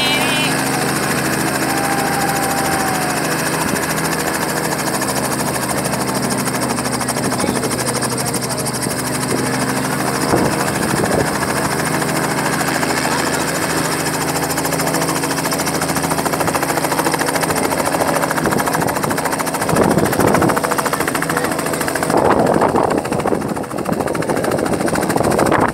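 Light two-bladed helicopter running on the ground with its rotor turning, a steady drone of engine and rotor before takeoff. Louder gusts of noise come in near the end.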